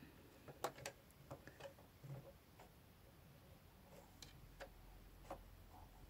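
Near silence with a handful of faint, irregular small clicks as thread is fed by hand through the eye of a sewing machine's twin needle.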